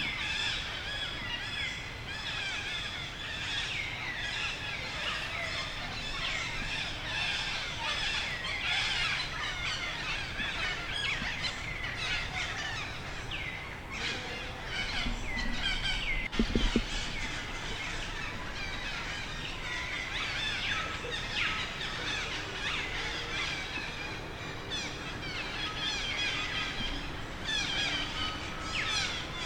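Many birds chirping at once in a dense, steady chorus of short calls. A brief low thump sounds about halfway through.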